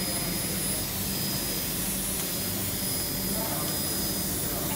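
Fiber laser cutting machine cutting holes in sheet metal: a steady hissing rush of the cut, with a constant hum and a thin high whine.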